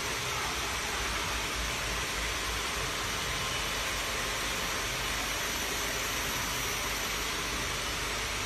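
Fiber laser machine running over aluminium, a steady even hiss with no change in level.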